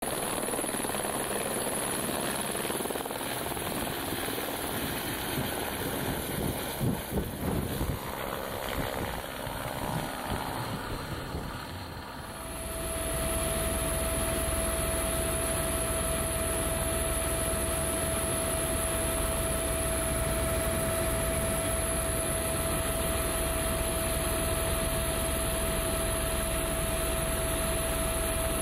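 Eurocopter AS350 A-Star single-turbine helicopter in flight, heard from aboard: rotor and engine noise. For about the first twelve seconds it is rough and uneven with a few knocks, then it settles into a steady drone with a low rumble and a steady whine.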